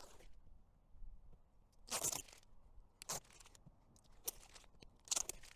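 Protective film being peeled off a new aluminium window frame: a few short tearing rasps.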